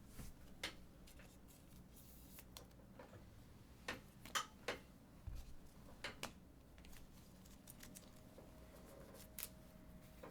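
Faint, scattered clicks and taps, a dozen or so spread unevenly, with a faint steady hum coming in near the end.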